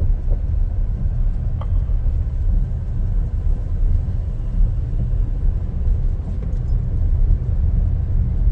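Steady low rumble of a car driving on a winding road, heard from inside the cabin: engine and road noise.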